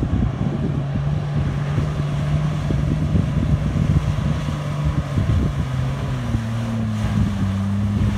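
Off-road 4x4's engine running steadily under load as it wades through shallow floodwater, its note shifting about six seconds in, with water churning around the wheels. Wind buffets the microphone throughout.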